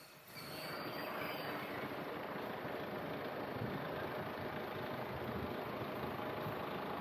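Steady background hum and rumble that starts about half a second in and holds level, with no speech.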